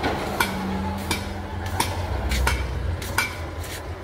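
Hammer blows at a steady pace, about one every 0.7 seconds, some with a short metallic ring, over a steady low rumble.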